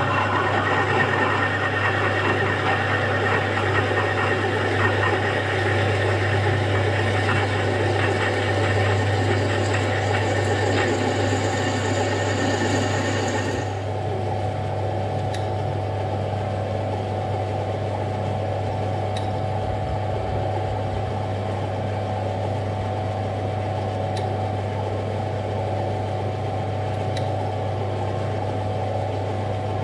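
Metal lathe turning slowly with a twist drill cutting through a metal block, a dense grinding cutting noise over the steady motor hum. About halfway through, the noise drops abruptly to the lathe's steady hum and a light whine as a spiral machine reamer finishes the hole, with a few faint ticks.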